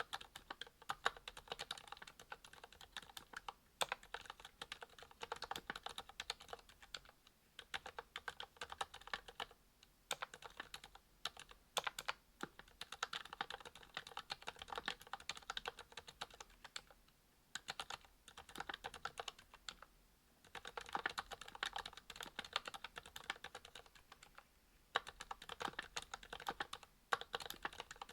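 Typing on a Monstargear XO V2 aluminium mechanical keyboard with lubed ZealPC Sakurios silent linear switches, a brass plate and GMK keycaps: fast runs of keystrokes with short pauses now and then.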